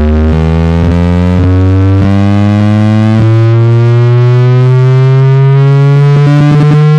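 Car sound system playing a loud, distorted tone that rises slowly in pitch, a sweep effect from a sound-rig jingle, stopping sharply just after the end.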